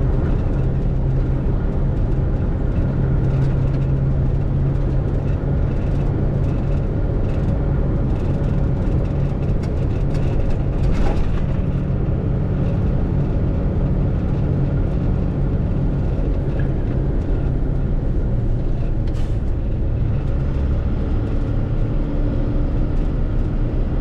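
MAN truck's diesel engine running steadily under way, a constant low drone with road and tyre noise over a wet road surface. A couple of faint brief ticks come about halfway through and again later.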